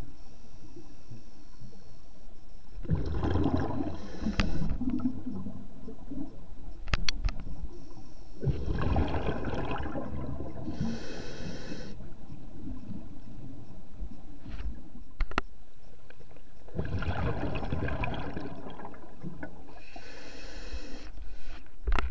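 Scuba diver breathing through a regulator underwater: three long bursts of bubbling exhaled air, with short hissing inhalations after the second and third.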